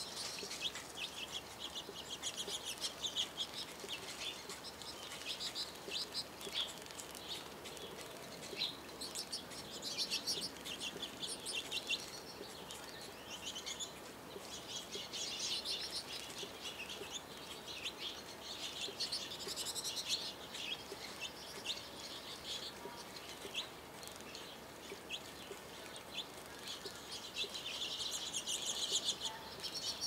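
Goldfinches twittering in rapid, high, chattering chirps that come in clusters, with sharp splashes and wing flutters as they bathe in a fountain birdbath. Water trickles steadily underneath.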